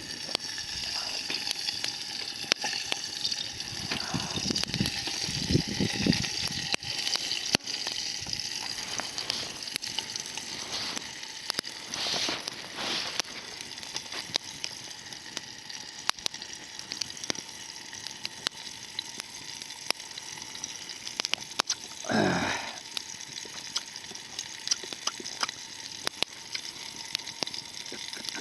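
Meat sizzling steadily over a campfire, with frequent small sharp pops and crackles. A brief louder sound comes about three-quarters of the way through.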